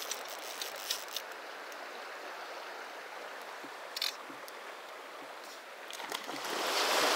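Flowing river water, a steady rushing hiss, with a few faint clicks and a small splash about six seconds in. The rush of water grows louder near the end.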